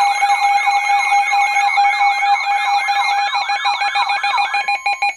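Weather radio alert alarm for a new warning: a repeating sweeping siren tone, about three sweeps a second, over a steady high tone. Near the end the sweeps stop and a fast-pulsing beep carries on.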